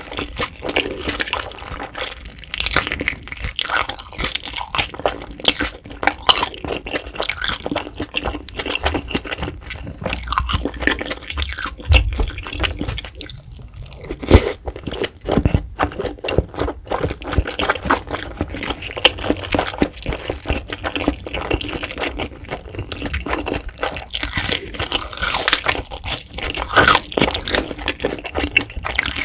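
Close-miked eating: a person biting into and chewing spicy fire-noodle (buldak) wraps, a dense run of small crunches and wet mouth clicks throughout, with a few heavier bites about halfway through.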